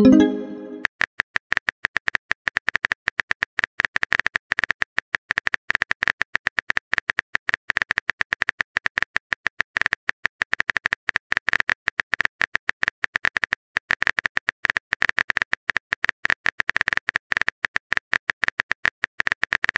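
Phone keyboard typing sound effect: a rapid, irregular run of sharp key clicks, many per second. A short rising message 'pop' ends just at the start.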